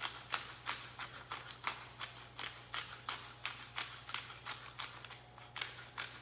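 Hand-twisted salt grinder milling pink Himalayan sea salt crystals, a regular series of dry clicks at about three a second.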